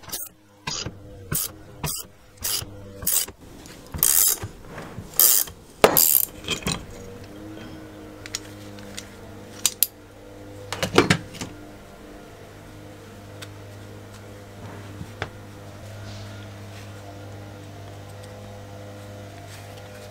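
Wrench turning the forcing screw of a three-jaw gear puller, drawing a ball bearing off a small two-stroke engine's crankshaft: about a dozen short metallic clicks and creaks, one every half second or so, growing louder. About 11 seconds in, a quick cluster of metal clinks.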